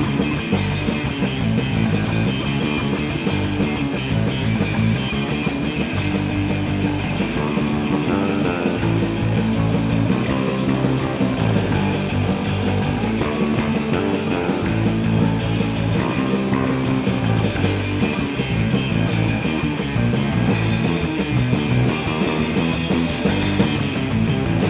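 Instrumental rock music with guitar and no vocals, playing at a steady level.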